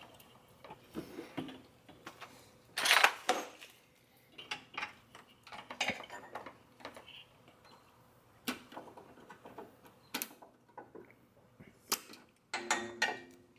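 Irregular small clicks and clinks of steel needle-nose pliers against a plastic wiring connector as the stock horn's plug is pried loose, the sharpest click about three seconds in.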